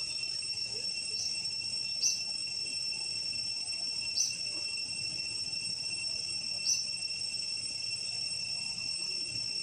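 Steady, high-pitched drone of forest insects, with a short chirp every couple of seconds.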